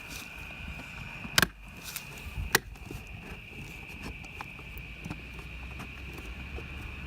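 Two sharp clicks about a second apart, plausibly the side-mirror glass's plastic clips snapping onto the mirror base as it is pressed home. Small handling ticks follow, over a steady high-pitched tone.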